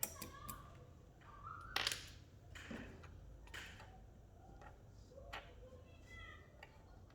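A few sharp plastic clicks and taps as keycaps are handled and set down side by side, the loudest about two seconds in.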